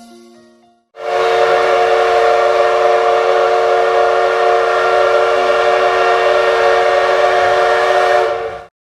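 Train whistle sounding one long, steady blast of several tones at once, lasting about seven and a half seconds and cutting off abruptly near the end.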